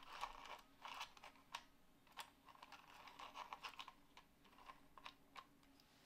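Faint, irregular light clicks and rattles of 3D-printed plastic lock parts as the key is turned in a six-lever detector lock, lifting the levers and moving the bolt.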